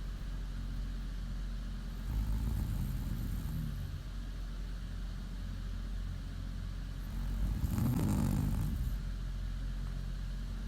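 A woman snoring in her sleep: two slow rumbling snores about five seconds apart, the second louder with a breathy hiss.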